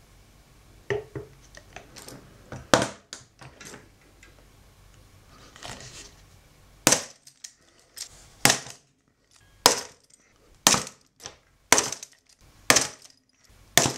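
Aluminium blind rivets being set with a lazy-tong hand rivet tool: a few light clicks, then from about halfway a row of sharp snaps, roughly one a second, each a rivet's mandrel breaking off as the rivet sets.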